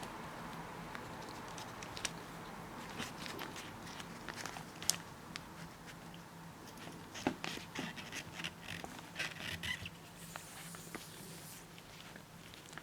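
Scattered light clicks, taps and scrapes of hand work on the dismantled washing machine's parts, busiest from about seven to ten seconds in, over a faint steady low hum.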